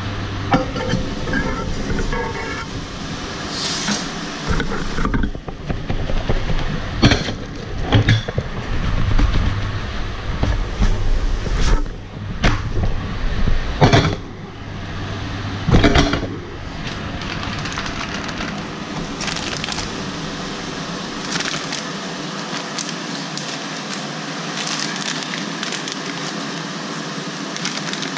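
A thin pancake frying in a steel pan over a gas hob, with a steady sizzling hiss. Several sharp clanks and scrapes of the pan and turner come in the first half as the pancake is flipped, and a low hum stops about three quarters of the way through.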